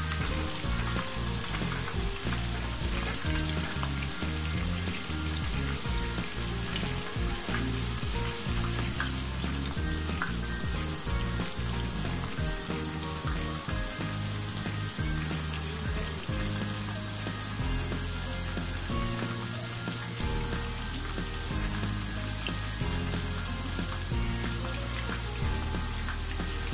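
Battered chicken pakoras deep-frying in hot oil in a wok on a medium flame, a steady dense sizzle and bubbling. Low background music plays underneath.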